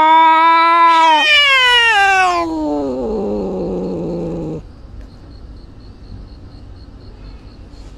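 A cat yowling: one long, loud, drawn-out call held on one pitch, then falling steadily in pitch before it cuts off about four and a half seconds in.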